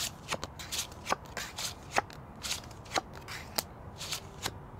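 Playing cards being dealt from a dealing shoe and flipped onto a tabletop: a string of short, sharp card snaps and slaps, about three a second at an uneven pace.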